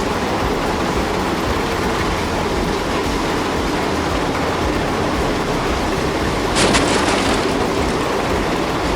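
Heavy machinery running: a loud, steady mechanical noise, with a brief burst of crackling hiss about seven seconds in.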